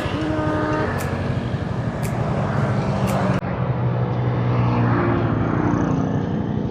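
Yamaha Mio One scooter's single-cylinder engine running with a fast, steady low pulse, with sharp ticks about once a second through the first half.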